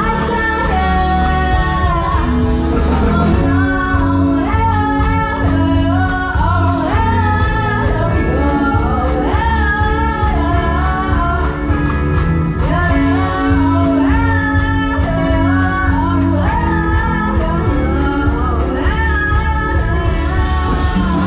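Music: a woman singing a melody over a band with a steady bass line and beat.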